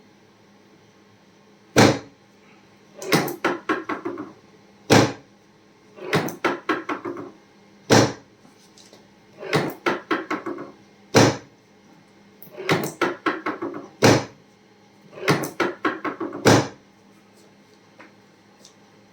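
Chiropractic adjustments on a treatment table: a quick run of clicks followed by a single sharp knock, repeating about every three seconds, six knocks in all.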